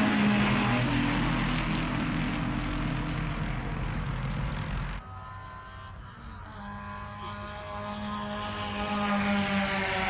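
Vintage race car engines. One car's engine fades as it draws away and cuts off abruptly about halfway through. After a short lull, another engine approaches, its note growing louder toward the end.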